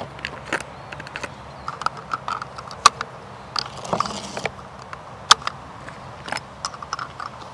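Brass 6.5 Creedmoor cartridges being pulled from a plastic ammunition box and pressed one by one into a Beretta BRX1 rifle's magazine. The sound is a string of irregular sharp metallic clicks and clinks, with a short scrape about four seconds in.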